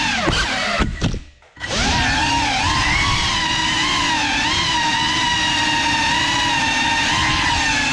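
Geprc Cinelog 35 cinewhoop FPV drone's brushless motors whining. The pitch falls as the throttle is cut about a second in, goes nearly silent for half a second, then spools back up and wavers with throttle changes.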